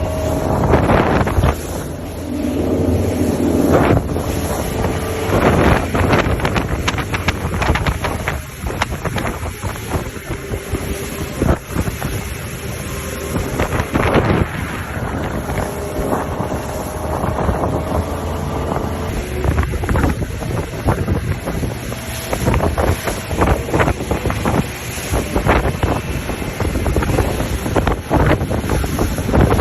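Fishing boat running under power at speed, its engine a steady low drone, with heavy wind buffeting the microphone throughout.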